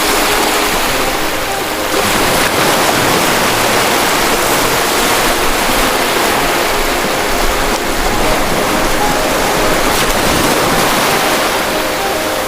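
Ocean surf: a steady, loud rush of breaking waves.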